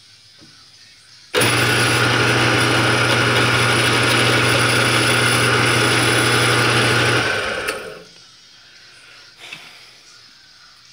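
Electric drill running for about six seconds, boring into a small bracket held against a frame; it starts suddenly and winds down when the trigger is released.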